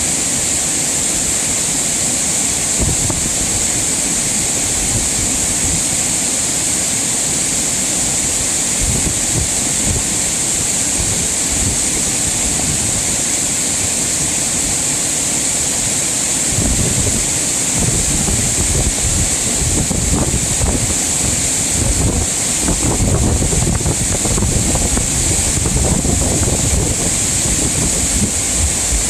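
Mountain valley stream rushing steadily over rocks. From a little past the middle, wind buffets the microphone with low rumbling gusts.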